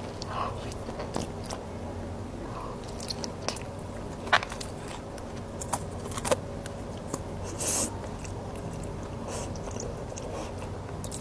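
Close-miked eating: biting and chewing food, with scattered sharp clicks and short crisp crunches, the loudest a click about four seconds in.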